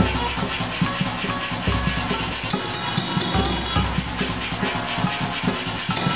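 Background music with a fast steady beat and a deep bass note repeating about every second and a half.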